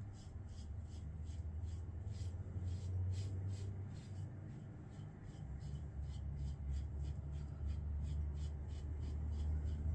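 Gold safety razor scraping through lathered beard stubble in short, rapid strokes, about three a second, over a low steady hum.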